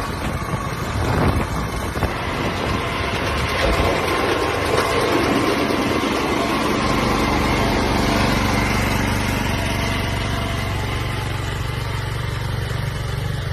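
A small engine running steadily, its low hum settling to an even level about halfway through.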